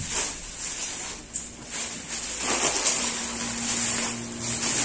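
Thin plastic carrier bag and the snack packets inside it rustling and crinkling as they are handled and pulled about, in uneven bursts.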